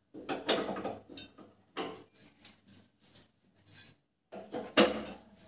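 Metal gas-stove burner parts clinking and knocking as they are set back in place on the burners: a string of short clinks, with the loudest knock near the end.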